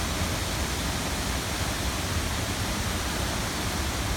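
Steady rush of a waterfall: an even, unbroken roar of falling water.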